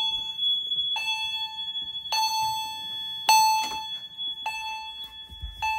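Fire alarm chime, likely an Edwards chime strobe, striking about once every 1.2 seconds, each stroke ringing and fading, over a steady high-pitched tone from another alarm. The system is in alarm after a pull station was pulled.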